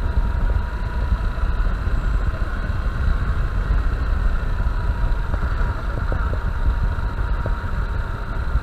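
Honda Bros 160 single-cylinder motorcycle engine running steadily under a dense, even low rumble of engine and road noise.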